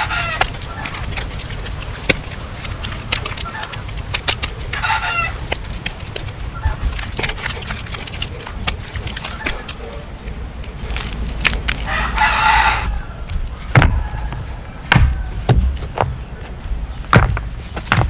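A rooster crows once, about twelve seconds in, with shorter chicken calls near the start and around five seconds. Throughout there are scattered knocks and taps, with a few heavier thumps in the last few seconds.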